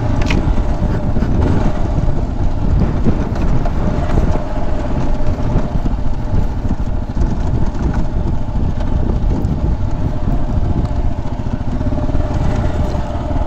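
Motorcycle engine running steadily while being ridden.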